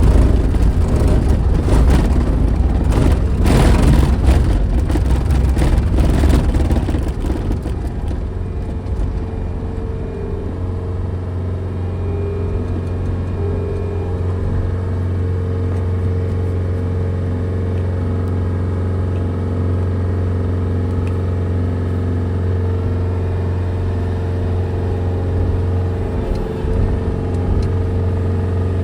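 A vehicle engine running. It is louder and rougher for the first several seconds, then settles into a steady, even hum.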